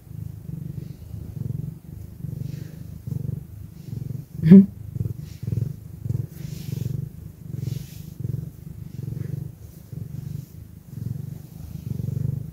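Calico cat purring close to the microphone, a low rumble pulsing in a steady rhythm about one and a half times a second. One brief, sharper sound breaks in about four and a half seconds in.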